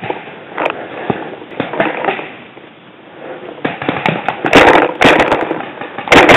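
Paintball markers firing sharp pops in short rapid volleys from about four seconds in, very loud and close. Before them, rustling movement through dry leaves.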